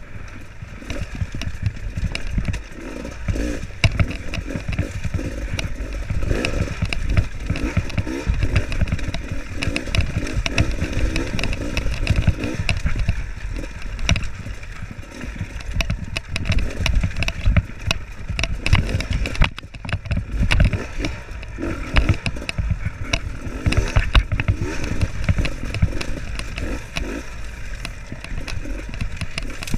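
Dirt bike engine running at low revs on a steep, rocky downhill trail, with constant rattling and knocking from the tyres, chassis and suspension over loose rocks.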